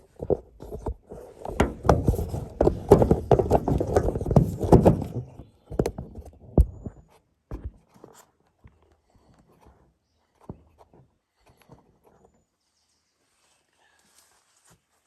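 Branches and brush being cleared by hand: a busy stretch of crashing, snapping and thudding wood with footsteps in the undergrowth, tapering to a few separate thuds and then only faint scattered clicks.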